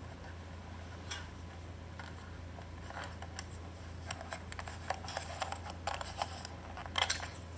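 Irregular small clicks and taps, sparse at first and then coming thick and fast in the second half, with a louder pair of clicks near the end, over a steady low electrical hum.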